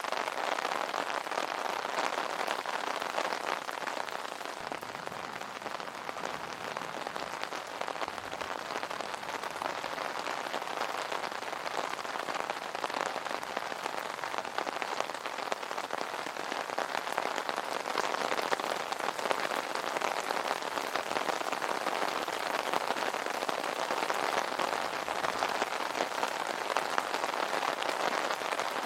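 Steady rain falling on an umbrella canopy: a dense, even patter of many drops.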